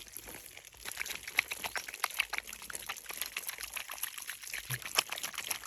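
Water pouring and dripping, with many small irregular splashes.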